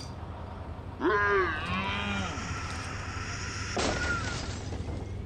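Two swooping, animal-like calls in a cartoon about a second in, each rising then falling in pitch, the second lower and shorter, followed by a short hissy burst near four seconds.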